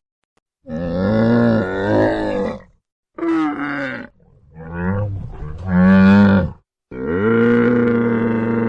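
A camel bellowing in a series of long, low, pitched calls with a wavering tone. There are four calls, each separated by a short silence, and the last starts near the end and holds a steady pitch.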